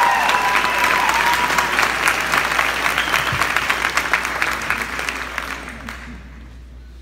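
Audience applauding as a marching band's last held brass chord dies away in the first seconds. The applause thins and fades out about six seconds in.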